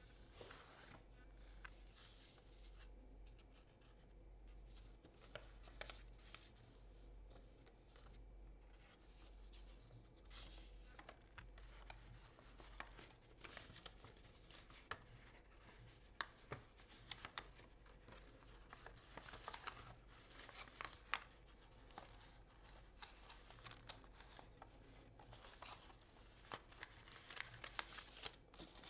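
Faint rustling and crinkling of printer paper being creased and folded by hand, with scattered soft crackles as folds are pressed flat, busier around two-thirds of the way through and near the end.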